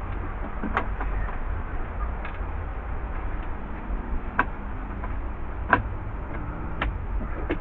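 Small gear being handled in a boat's storage compartment: about half a dozen short, sharp clicks and knocks at irregular intervals, over a steady low rumble.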